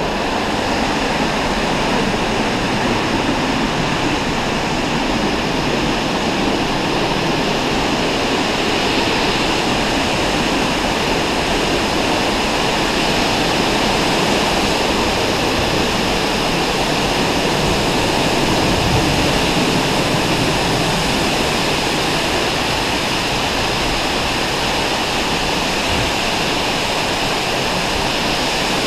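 Waterfall pouring, heard from right beside the falling water: a loud, steady rush of water.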